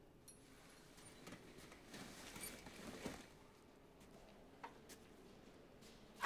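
Faint rustling of heavy cloth and shuffling movement as a person gets up and moves, then a small click and, right at the end, a sharper click or knock.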